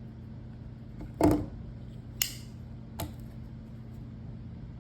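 A Buck 112 Slim Ranger folding knife being handled: a dull knock about a second in, then two sharp metallic clicks of the blade and lockback, under a steady low hum.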